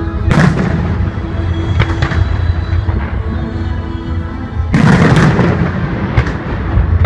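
Fireworks shells bursting in the sky: a loud bang about a third of a second in, a smaller one near two seconds, and the loudest burst near five seconds, followed by a few smaller bangs. Music with sustained tones plays underneath.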